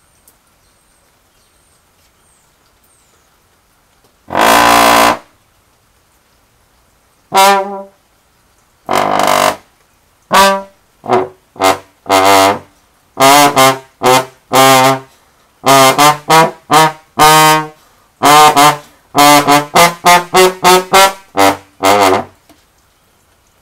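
Slide trombone played solo. After a few seconds of quiet comes one long, loud note, then a tune of short notes that come quicker toward the end and stop just before it.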